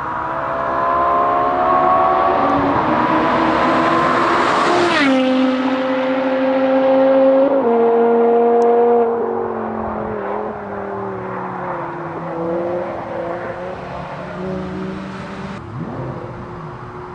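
BMW E60 exhaust under hard acceleration. The note climbs in pitch, drops suddenly at two upshifts about five and seven and a half seconds in, then eases off and winds down as the throttle is lifted.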